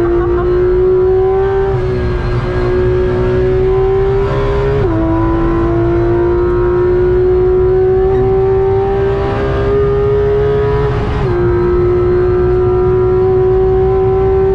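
Porsche 991.2 GT3 RS's 4.0-litre naturally aspirated flat-six heard from inside the cabin, pulling hard in high gears with the engine note slowly rising, broken by quick PDK upshifts about five and eleven seconds in. Steady tyre and road rumble underneath.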